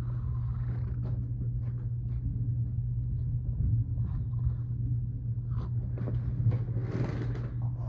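Passing freight train heard through a closed window: a steady low rumble with a constant hum, and a few faint clicks over it.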